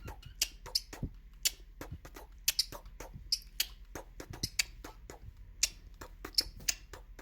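A pet bird making an irregular series of sharp clicks and short chirps, a few a second.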